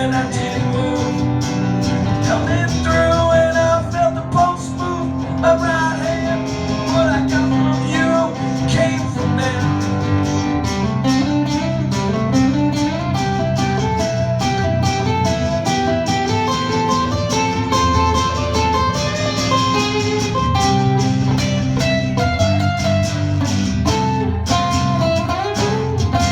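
Live acoustic band music led by guitars, with a picked melody over chords; from about a third of the way in, a steady, quick strummed rhythm takes over.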